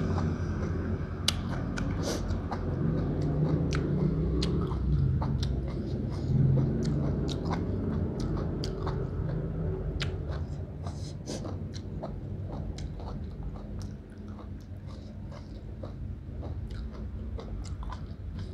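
Close-up chewing of slices of beef tripe, with many sharp, wet mouth clicks throughout. It grows somewhat quieter in the second half.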